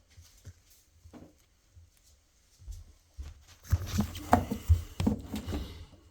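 Handling noise from a rubber washer door boot gasket being pushed and worked onto the tub opening of a front-load washer. A few faint taps come first, then, from a few seconds in, a spell of rubbing with several knocks.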